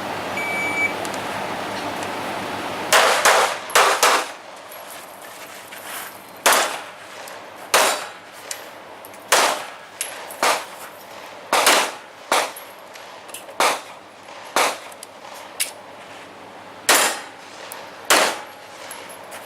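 A shot-timer beep within the first second, then a string of about eighteen handgun shots spaced roughly a second apart, some in quick pairs, with steel targets ringing with a clang on hits.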